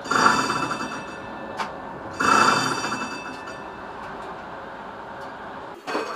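Tram's electric warning bell rung twice in fast rattling peals of about a second each, over the steady running noise of the tram on its rails. A short sharp knock comes near the end.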